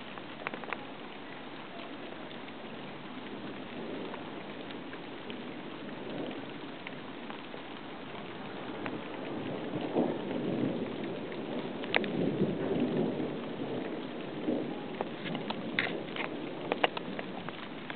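Thunderstorm: steady heavy rain with a rolling rumble of thunder that swells about halfway through and dies away near the end, and a few sharp taps standing out over the rain.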